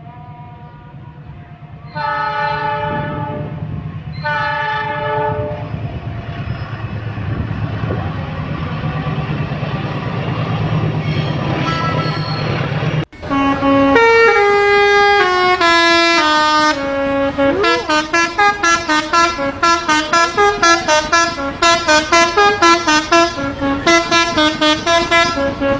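A train horn sounds two blasts of about a second each, then a train rumbles past. About halfway through it cuts abruptly to a telolet basuri multi-tone bus horn playing a quick stepwise melody of rapidly repeated notes.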